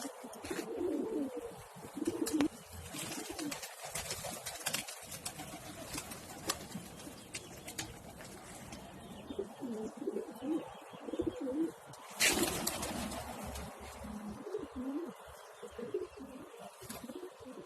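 Pigeons cooing repeatedly in low, wavering runs, with scattered sharp clicks and a short loud burst of noise about twelve seconds in.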